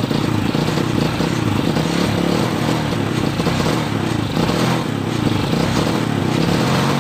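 Honda Supra X four-stroke single-cylinder engine running steadily through its exhaust, the leaking muffler just welded and declared fixed.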